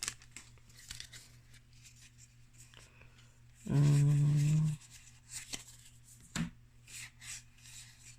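Faint flicks and rustles of trading cards being leafed through by hand. About four seconds in, a man gives one steady hum lasting about a second.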